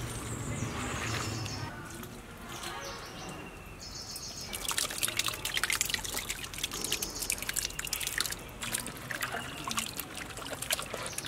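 Hands squishing and mixing raw chicken pieces in a wet spice marinade, with thick curd tipped in from a steel bowl: a dense run of wet squelching and slapping that starts about four and a half seconds in.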